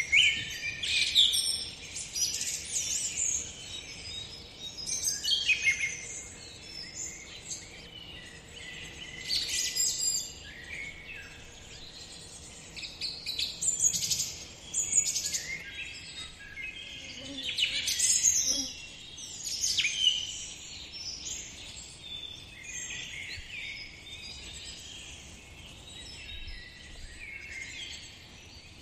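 Several songbirds chirping and whistling, in bursts of quick calls every few seconds that thin out in the second half.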